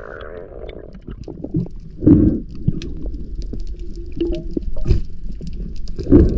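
Underwater sound picked up by a diver's camera in its housing: a steady low rumble with scattered clicks and three heavy thumps, the loudest about two seconds in and near the end, and a brief low hum partway through.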